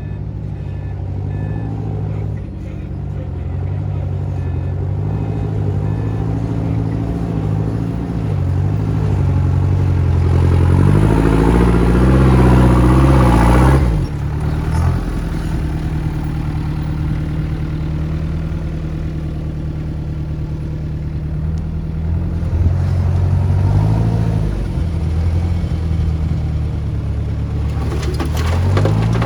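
Heavy diesel engine of earthmoving machinery running and revving under load: the revs climb to their loudest about twelve seconds in, then drop off suddenly, and rise again twice later on.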